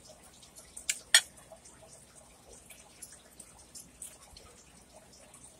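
Close-up wet chewing and mouth smacks of a mouthful of hamburger steak in creamy mushroom gravy. About a second in there are two sharp clinks, the second the loudest, as the fork is set down against the plate.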